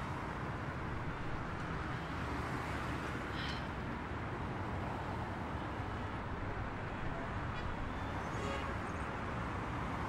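Steady city street traffic noise, a continuous hum of passing cars, with a faint brief high sound about three and a half seconds in.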